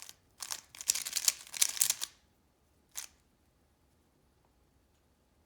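Plastic Rubik's Cube layers being turned fast, a quick run of clicks and clacks from about half a second in lasting under two seconds, then one more turn about three seconds in: a setup move and corner-swapping algorithm.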